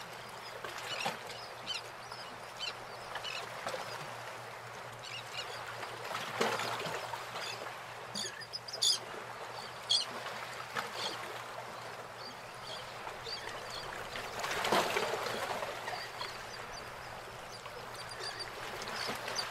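Outdoor ambience: a steady hiss that swells twice, with short high bird chirps now and then, more of them near the end.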